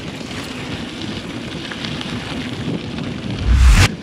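Mountain bike on the move: a steady rumble of tyres on a dirt track mixed with wind noise on the microphone, and a loud half-second rush of wind about three and a half seconds in.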